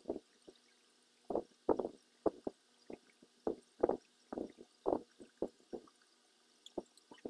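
Hands rubbing and rustling hair and socks as sock-wrapped curls are unwound, in short, irregular soft bursts.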